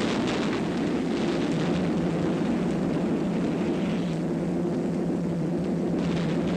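Steady drone of piston-engined bomber aircraft on an old newsreel soundtrack, an even low hum with no break.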